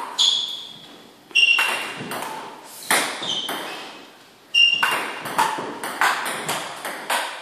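Table tennis rally: the ball clicking off paddles and bouncing on the table, several bounces with a short ringing ping. The strikes come unevenly, with a lull of about a second midway and then a quicker exchange.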